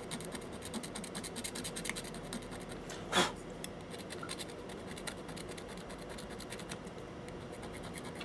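Soldering iron tip rubbing and scratching against a circuit board's solder pads, a fine irregular crackle, with one short, sharper and louder scrape about three seconds in.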